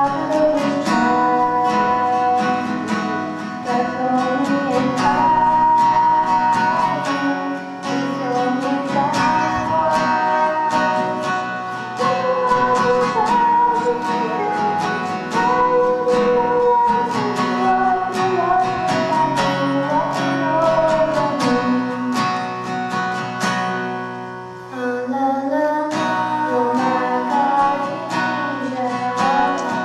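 Singing over strummed acoustic guitar, the melody line carried steadily, with a brief drop in loudness about 24 seconds in before the song picks up again.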